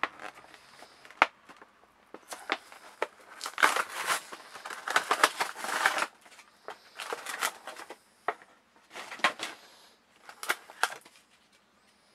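Stiff clear plastic blister pack of an action figure being handled and pried open: crackling and crinkling with sharp snaps and clicks, densest and loudest a few seconds in, then scattered snaps.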